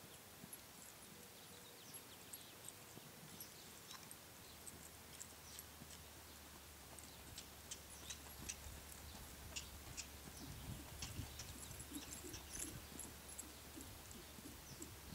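Faint, dull hoofbeats of a horse trotting on a lunge line in deep arena sand, growing louder in the second half, with a low rumble joining about a third of the way in.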